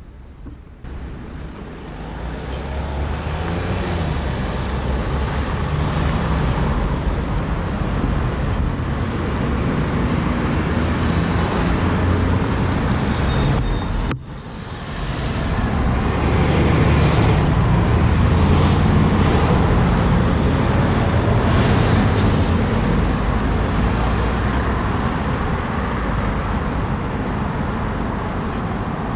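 Ride noise from a camera fixed to a moving bicycle: a steady rumble of tyres and frame vibration coming through the mount. It builds over the first couple of seconds, drops out for a moment about halfway, then runs louder.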